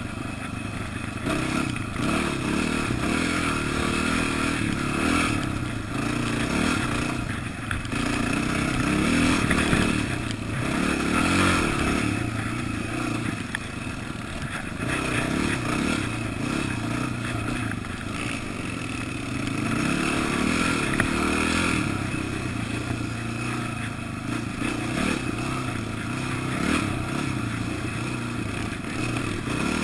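Dirt bike engine running under load on a snowy trail, the revs rising and falling every few seconds as the rider works the throttle, with rough scraping and clattering from the ride.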